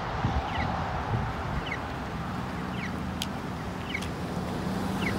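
Accessible pedestrian signal sounding its chirp walk tone: short electronic chirps about once a second, the sign that the walk interval is on, over steady road traffic.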